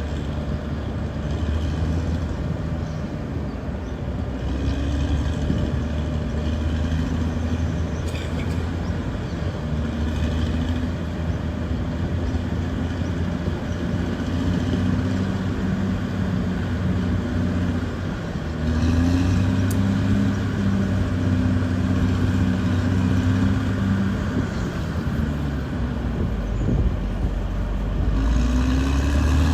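Diesel engine of heavy earthmoving equipment running steadily under load. It revs up with a rise in pitch and loudness about two-thirds of the way through, and again near the end.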